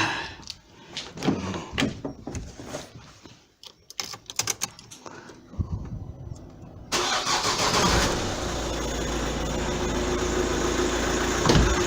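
A few clicks and knocks, then about seven seconds in the 2009 Vauxhall Astra's diesel engine cranks and starts, settling into a steady idle. It runs without a belt squeak on its new alternator, tensioner, idler and belt.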